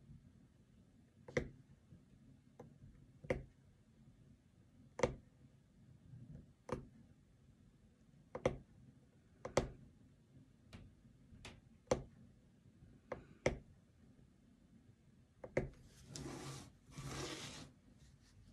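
Punch needle stabbing through fabric stretched tight on a frame: a sharp click with each punch, about a dozen at an uneven pace of roughly one a second. Near the end come two short rustling sounds.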